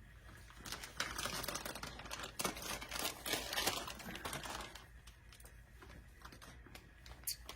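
A new toner cartridge's packaging being opened by hand: scattered clicks, taps and crinkles of cardboard and plastic. The handling is busiest in the first half and thins out after about four and a half seconds.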